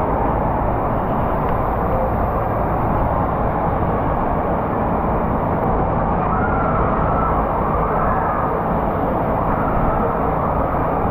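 Steady roar of a water park at the top of a slide: rushing water and echoing crowd noise, with faint distant shouts rising over it around the middle.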